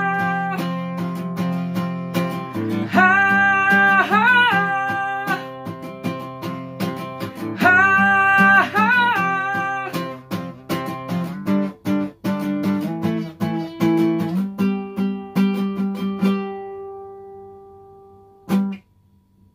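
A man sings long, wavering held notes over a strummed and picked acoustic guitar at the close of a song. The singing stops about halfway and the guitar carries on alone. Its last chord rings and fades, and a short muted stroke comes just before the end.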